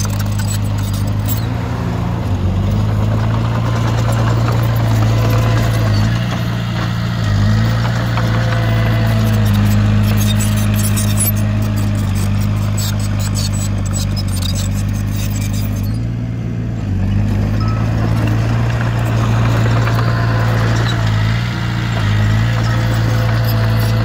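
Diesel engine of heavy earthmoving machinery running steadily, its low hum dipping briefly several times, with faint clatter in places.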